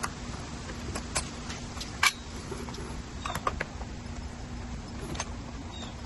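Scattered small clicks and taps of a screwdriver working the screws out of an e-bike battery's top cap, the loudest about two seconds in and a short cluster around three and a half seconds, over a steady low hum.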